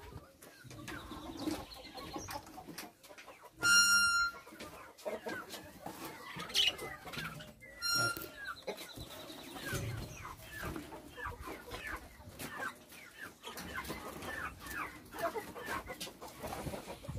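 Chickens and turkeys clucking and calling in their pens. There are two sharp, high-pitched squeals, one about four seconds in (the loudest sound) and a shorter one about eight seconds in.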